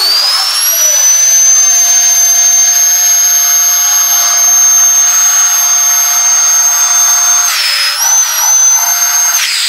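Small electric vacuum running with a loud, steady high whine, sucking the air out of a vacuum-seal storage bag through its valve. Near the end the pitch dips and wavers, then it winds down.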